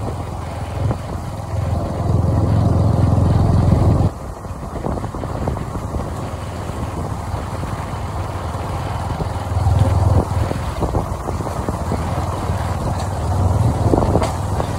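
Sport motorcycle engine running at low speed, a steady low drone. It is louder for a couple of seconds, drops off abruptly about four seconds in, and swells again around ten and fourteen seconds.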